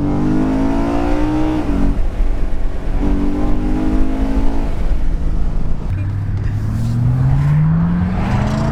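BMW E92 M3's V8 accelerating hard through the gears. The note rises and then drops back at shifts about two seconds in and near the middle, then climbs in one long pull through the last third.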